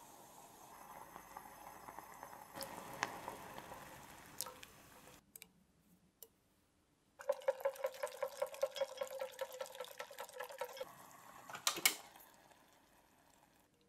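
A stock sauce boiling hard in a stainless steel saucepan as it reduces, bubbling and popping. After a short pause, a whisk beats a thick cream sauce in the pan in quick, even strokes, about five or six a second, working in beurre manié to thicken it. Near the end a single sharp metallic clank rings from the pan.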